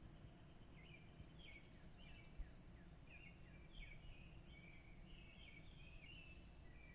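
Birds chirping in quick runs of short, high notes, faint over a low steady rumble.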